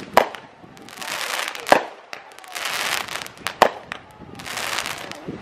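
Aerial fireworks bursting: three sharp bangs less than two seconds apart, with a hissing crackle between them.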